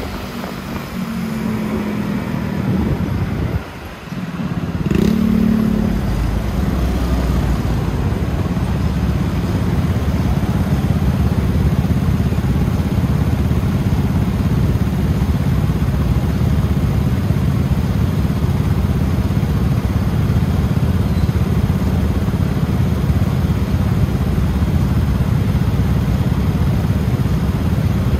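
Motor scooter riding through city traffic: its engine running under a steady haze of road and wind noise. The sound dips briefly about four seconds in, then runs steady and louder.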